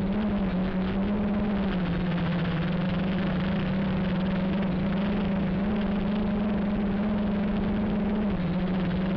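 Q450 quadcopter's electric motors and propellers running in flight, heard from on board: a steady drone whose pitch wavers slightly with throttle changes, over a broad rushing noise.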